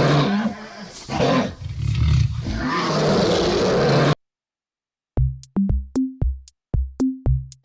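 Crocodile growling in three long, rasping roars that cut off suddenly about four seconds in. After a second of silence, an electronic drum beat starts.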